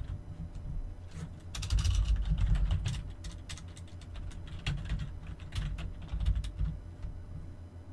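Typing on a computer keyboard: irregular key clicks, with a low uneven rumble underneath.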